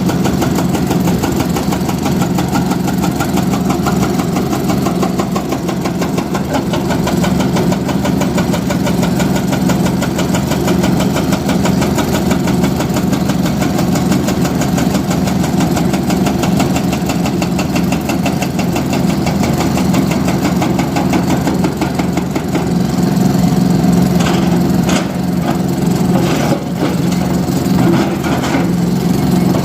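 Heavy machine's diesel engine running steadily, with a few sharp knocks or clanks near the end.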